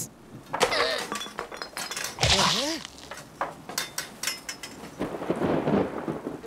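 Cartoon sound effects: a run of sharp knocks, clinks and a breaking crash, with short yelps, and a deep boom about two seconds in.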